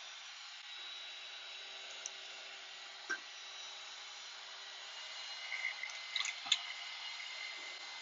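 Small electric heat gun blowing a steady hiss with a faint hum as it shrinks plastic shrink wrap onto a tumbler. A few soft ticks and crinkles come about six seconds in.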